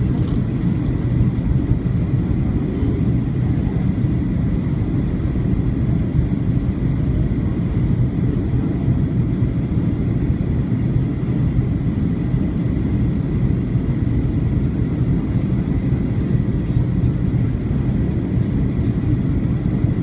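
Boeing 737-900ER's CFM56-7B jet engines heard from the ground on the landing approach: a steady low rumble with a faint high whine held on one note.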